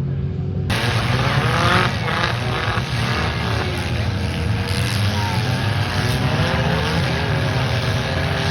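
Racing car engines running at a county fair track, a loud steady drone with engine pitches rising and falling as the cars rev. About a second in, a wide rushing noise joins and stays.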